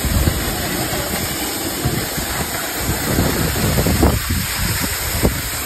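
Waterfall's steady rushing and splashing of falling water, with wind buffeting the microphone in uneven low rumbles.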